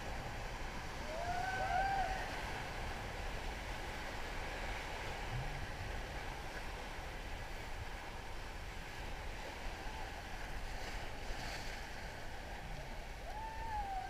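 Steady rush of river water with wind noise on the microphone. Short faint shouts bend up and down about a second in and again near the end.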